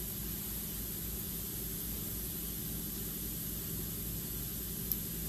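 Steady hiss with a low hum underneath, the room tone of a workshop, with one faint click near the end.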